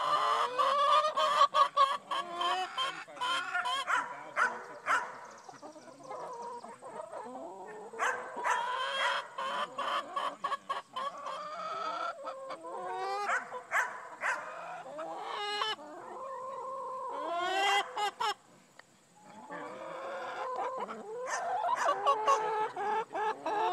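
A flock of chickens clucking and squawking almost without pause, many calls overlapping, with a rooster crowing among them. The sound cuts out briefly about two-thirds of the way through.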